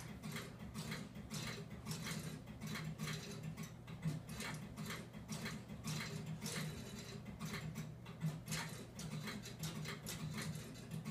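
Relays in a railroad CTC control machine and its signal field units clicking irregularly, a few clicks a second, as the codes go out to return the signals to stop. A steady low electrical hum runs underneath.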